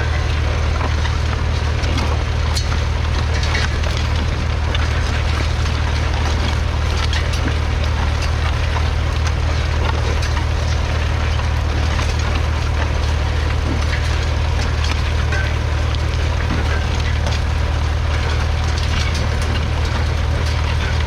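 1962 McCormick International B275's 2.3-litre four-cylinder diesel engine running steadily, a deep even drone, with a dense crackling over it.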